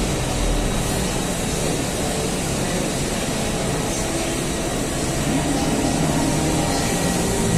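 CNC milling machine engraving a metal plate: the spindle runs and the small cutter mills steadily, giving an even noise with a faint high whine.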